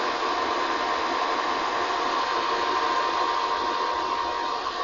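Cooling fans of a Korad KEL2040 1500 W electronic load running, a steady rush of air with a thin steady whine in it. They have switched on by themselves under a sustained load of about 460 W (30 A at 15 V).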